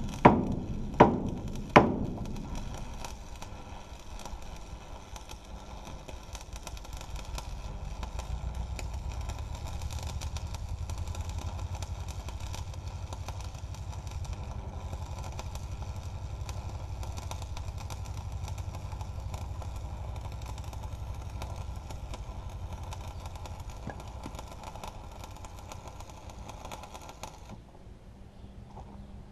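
Three sharp knocks in the first two seconds, then an electric arc welding a steel frame crackles steadily over a low hum. The arc cuts off suddenly near the end, leaving the hum.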